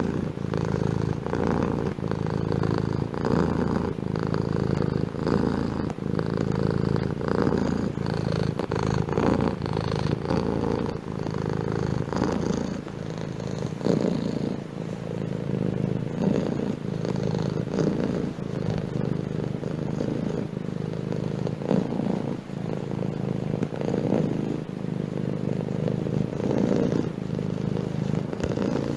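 Domestic cat purring steadily and loudly close to the microphone, the purr swelling and easing every second or two as the cat breathes in and out.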